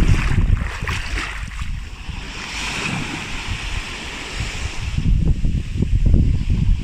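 Surf washing onto the beach, its hiss swelling in the middle, with wind buffeting the microphone in low rumbling gusts at the start and again from about five seconds in.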